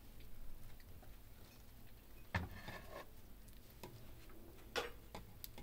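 Metal ladle scooping thick yellow lentil soup with vermicelli from an aluminium pot onto a china plate: a few soft clinks and knocks, the clearest about two and a half seconds in and again near the end.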